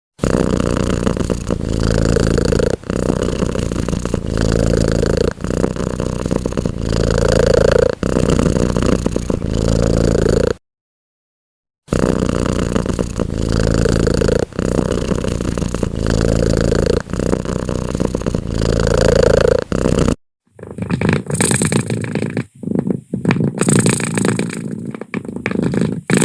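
Domestic cat purring loudly and breathing, the purr swelling and easing with each breath about once a second. It cuts to silence for about a second and a half around ten seconds in, then resumes. Near the end it gives way to a rougher, broken-up breathing sound with short gaps.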